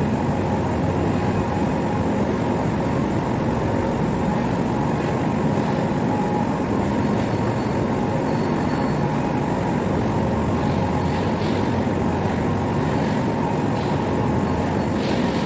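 Steady machinery noise, a continuous low rumble that holds level throughout, with faint brief high-pitched tones here and there.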